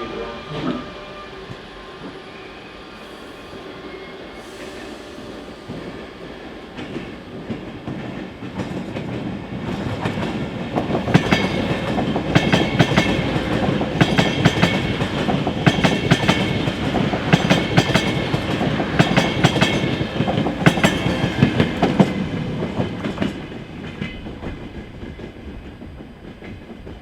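A train passing close by, its wheels clattering rhythmically over the rail joints; it builds up over the first several seconds, is loudest in the middle and fades away near the end.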